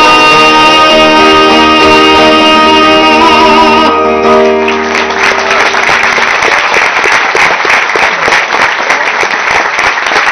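A live song ends on a long held final chord that stops about four seconds in. Audience applause follows and goes on through the rest.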